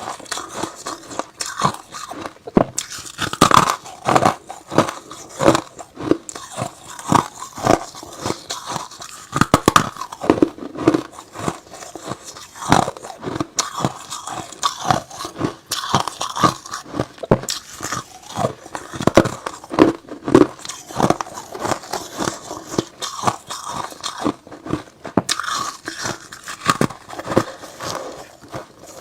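Close-miked crunching of hard ice and freezer frost being bitten and chewed, with many sharp cracking crunches a second, in an unbroken run.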